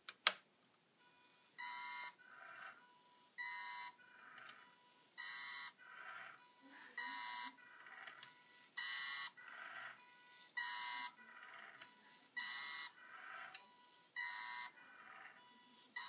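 Small brushed DC motors of a scrap CD-drive 3D printer whining as test code drives the axes back and forth. The high-pitched whine comes from the pulse-width-modulated motor drive. The cycle repeats about every 1.8 seconds: a loud half-second whine, then a quieter one. There is a sharp click just at the start.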